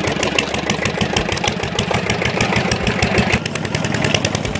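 Diesel engine running steadily with a rapid, even beat.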